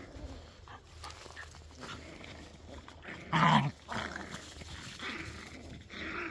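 Jack Russell Terrier puppies playing and tussling, making short vocal noises, with one loud bark about halfway through.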